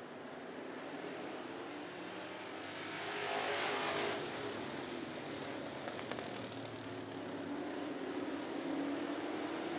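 Engines of a pack of classic dirt-track race cars running around the track. The sound swells to its loudest a few seconds in as the cars pass close by.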